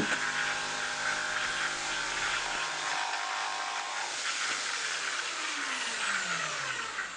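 Bosch GST jigsaw cutting through 50mm oak with a variable-tooth-geometry blade: a steady motor and blade rasp, with the pitch falling over the last few seconds.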